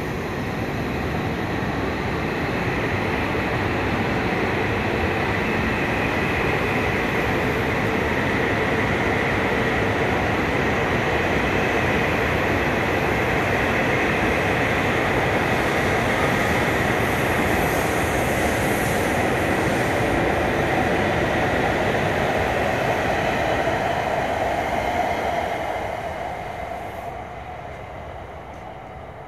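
E5 series Shinkansen train departing the station and passing along the platform: a steady rush of wheel and running noise with a hum that rises slightly in pitch as it gains speed. It fades away near the end as the train pulls off into the distance.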